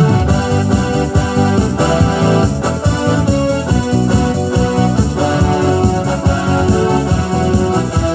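Electronic keyboard playing a hymn tune in an organ voice, with full held chords and a moving bass line.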